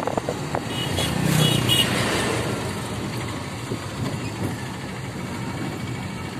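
Engine and road noise of a moving vehicle in traffic, louder for about a second between one and two seconds in, then settling to a steady rumble.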